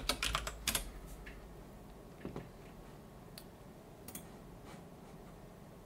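Computer keyboard keystrokes: a quick run of key presses in the first second, then single clicks about once a second.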